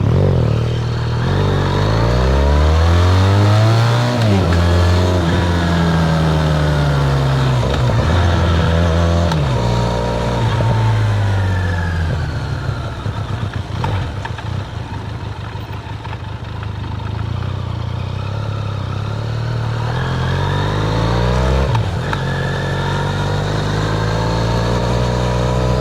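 Benelli TRK 502's parallel-twin engine through its stock exhaust, the revs rising and falling. Twice the pitch climbs steeply and then drops sharply, once about four seconds in and again near the end, with long slow falls in between.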